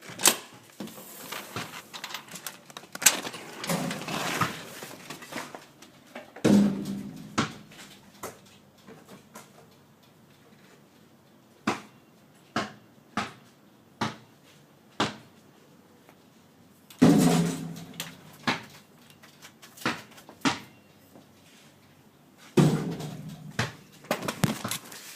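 A basketball being bounced on hard ground: a run of sharp single thuds a little under a second apart, among heavier, fuller thuds now and then.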